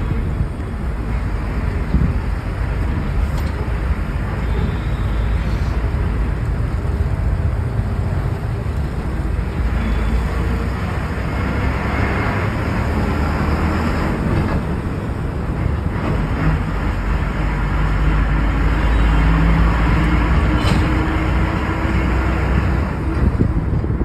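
Steady engine and road rumble of a moving bus heard from inside the cabin, with the engine note growing a little louder in the second half.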